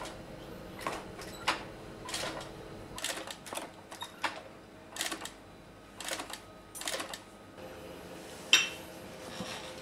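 Industrial leather sewing machine stitching leather in short, stop-start runs: irregular mechanical clicks and clacks, some in quick clusters, with a sharper click near the end, over a faint steady hum.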